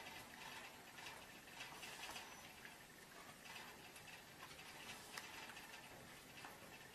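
Near silence with faint, scattered light clicks and rustles from two cats scuffling.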